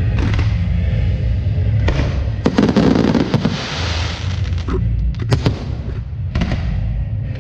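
Fireworks going off with sharp bangs and a stretch of crackling and hissing, over loud music with a steady low bass.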